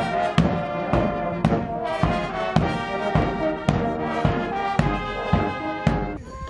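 Marching brass band playing: trombones and sousaphones over a bass drum beating just under twice a second. The music cuts off shortly before the end.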